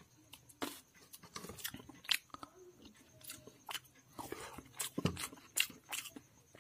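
Eating sounds of snail curry and rice eaten by hand: about a dozen irregular sharp, wet clicks and smacks of chewing, with a deeper thud about five seconds in.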